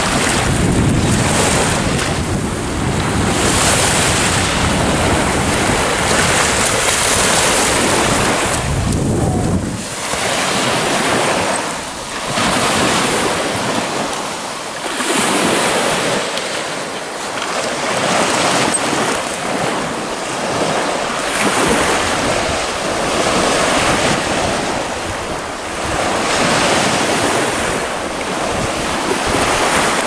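Small sea waves washing onto a sandy shore, the surf swelling and easing every few seconds, with wind buffeting the microphone as a low rumble for roughly the first ten seconds.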